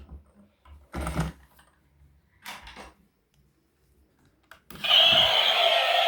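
A few light plastic clicks and rustles from a toy being handled, then near the end a battery-powered toy vehicle starts a loud, steady electronic sound effect.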